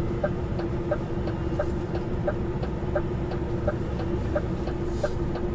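Truck's diesel engine running with a steady hum heard inside the cab, with a regular ticking about three times a second from the indicator relay.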